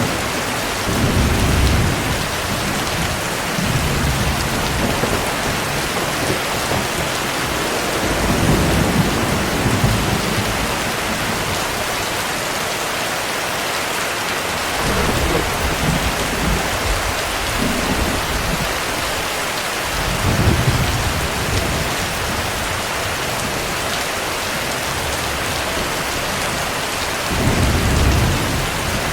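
Heavy rain falling in a steady hiss, with low rolls of thunder swelling and fading several times.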